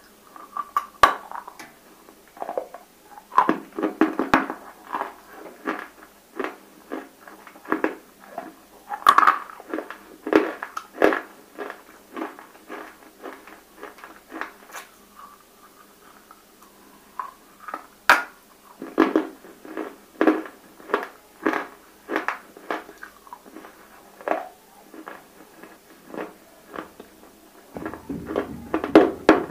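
Close-miked biting and chewing of water-soaked, fully roasted edible clay (nakumatt): a run of sharp, crackly crunches in irregular clusters, with a short lull in the middle.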